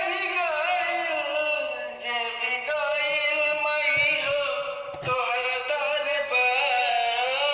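A man singing a Bhojpuri devotional song to the Mother goddess in long, wavering melodic phrases, with brief breaks about two and five seconds in.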